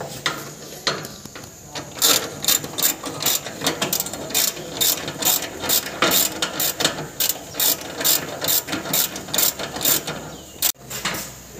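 Hand ratchet wrench clicking in a steady run, about three clicks a second, as it drives a bolt on the fuel tank's mounting. Starts about two seconds in and cuts off suddenly near the end.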